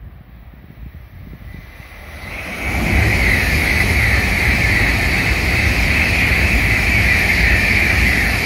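A Tokaido Shinkansen N700-series train passing at high speed without stopping. It builds up about two seconds in, then holds as a loud, steady rush of hiss over a low rumble.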